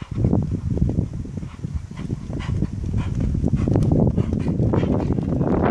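A horse's hooves trotting on a sand arena: a dense run of dull thuds that builds toward the end as the horse comes close.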